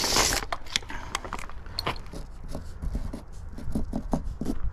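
Light clicks, taps and scratches of a steel tape measure being handled and a measurement being written on plastic house wrap, over a steady low rumble of wind on the microphone.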